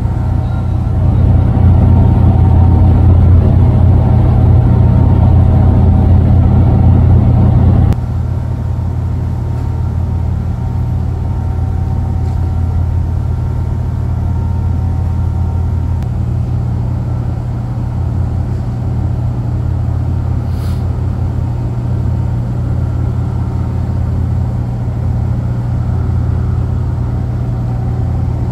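Steady low drone of marine engines and deck machinery. It is louder for the first few seconds, drops suddenly about eight seconds in, and then runs on at a lower level.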